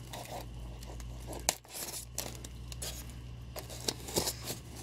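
A box cutter slitting the tape on a white statue packing box, with scraping and tearing and a few sharp clicks, then hands working the lid loose.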